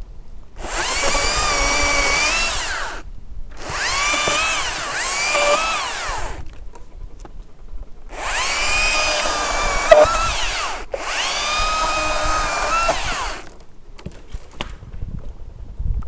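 Makita cordless top-handle chainsaw run in four bursts of two to three seconds each, its high motor whine dipping and wavering in pitch as the chain bites into ginkgo limbs. The saw stops dead between bursts.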